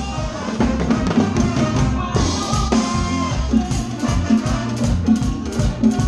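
A Latin dance band playing live, with the drum kit up front, heard through the stage monitor mix.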